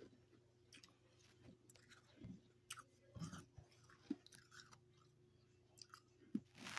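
Freezer frost being bitten and chewed: soft, irregular crunches and crackles, with a sharper crunch near the end.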